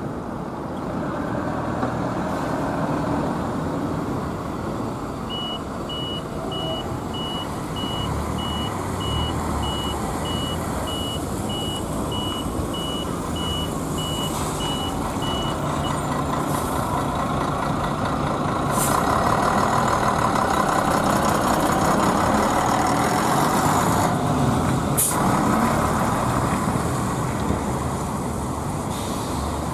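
An articulated Ikarus bus's diesel engine running as the bus pulls through the station, getting loudest as it passes close in the second half. From about five seconds in until roughly halfway there is a steady electronic beeping of about two beeps a second, and two short sharp high sounds come later on.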